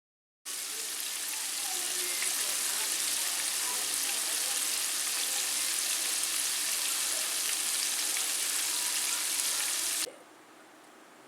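A steady, even hiss, like frying or running water, that starts just after a brief gap of silence and cuts off suddenly near the end.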